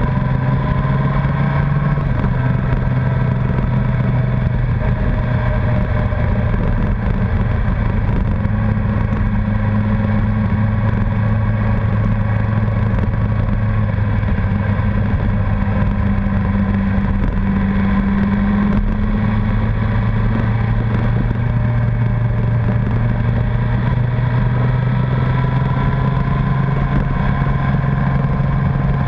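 Honda CBR1100XX Blackbird's inline-four engine running steadily at a cruise, its pitch holding nearly constant with only slight shifts.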